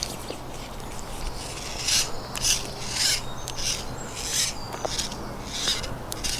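A series of short rasping, rubbing strokes, irregularly about half a second to a second apart, over a faint steady low hum.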